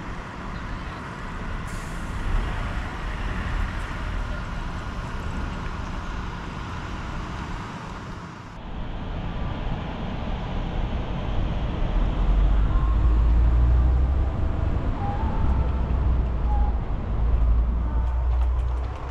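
Road and traffic noise heard while driving, a steady noise with a few faint whining tones. The sound changes abruptly about eight and a half seconds in, and a heavy low rumble builds from about twelve seconds in.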